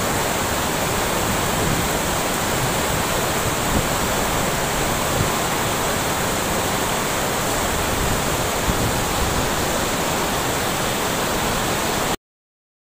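Steady rush of river water spilling over a low concrete weir, cutting off abruptly near the end.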